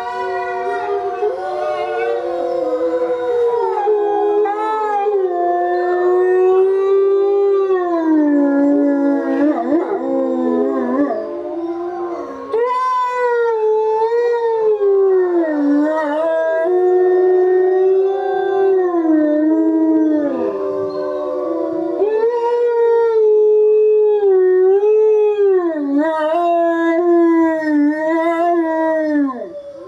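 Gray wolves howling in chorus: several long howls at different pitches overlap, each sliding up and down.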